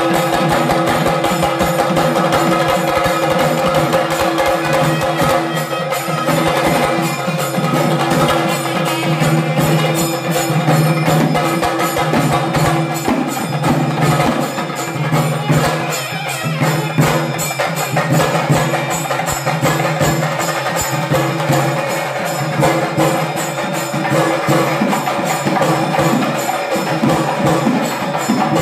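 Traditional procession music: fast, steady drumming with held, droning notes sounding over it.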